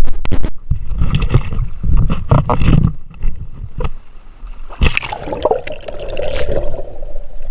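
River water sloshing and splashing against a camera held by someone wading waist-deep, with irregular knocks and splashes. About five seconds in there is a splash as the microphone goes under, and the sound turns muffled and gurgling.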